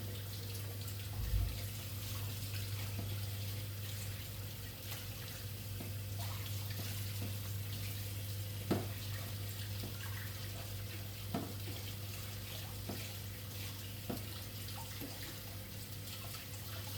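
Water running steadily from a kitchen tap, over a constant low hum, with a few light knocks.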